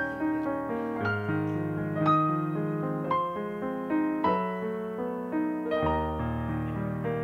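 Slow, gentle piano music: new notes and chords struck about once or twice a second over held bass notes.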